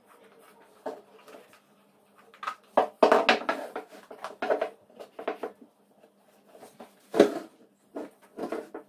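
Handling noise of a leather costrel and cord on a wooden tabletop: irregular scuffs and knocks as the bottle is laid down and slid across the table, with one sharp knock about seven seconds in. A faint low hum runs underneath.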